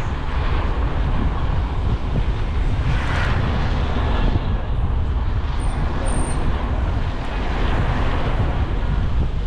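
Wind buffeting a GoPro's microphone on a moving bicycle, a steady low rumble, with road traffic noise underneath.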